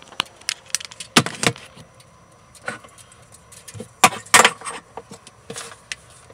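Handling noise inside an empty wooden subwoofer enclosure: a string of clicks, knocks and light rattles. A louder pair of knocks comes about a second in and another about four seconds in.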